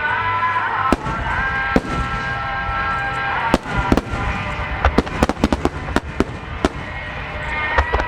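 Fireworks bursting in a rapid, irregular barrage of sharp bangs, with music playing steadily underneath.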